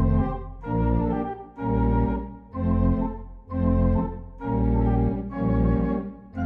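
Organ music from the film's added score: sustained chords played in a steady pulse about once a second, each swelling and then fading.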